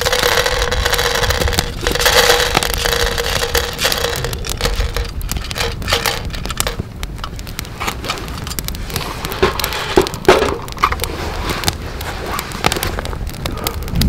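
Freshly roasted coffee beans poured out of a wire-mesh roaster onto a wooden board: a dense rattle for about the first five seconds, then scattered clicks as the beans settle and are spread out to cool.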